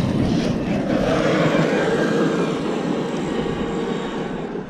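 Electric RC monster trucks driving on loose gravel: a steady whine from the brushless motors over tyres and stones, the sound easing off toward the end.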